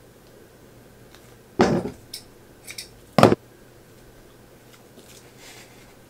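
Two short, loud crackling handling noises about a second and a half apart, with a few faint ticks between them, from sticky latex-coated costume material being pulled and wrapped.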